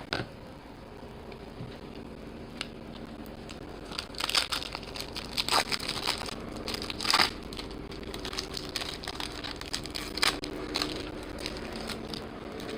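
Foil wrappers of trading-card packs crinkling and tearing as packs are opened and cards handled, in several sharp crackles.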